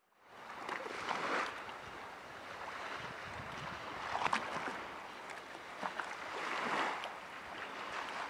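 Small waves of the calm Baltic Sea lapping gently on a sandy shore, a soft wash that swells and eases about every two to three seconds.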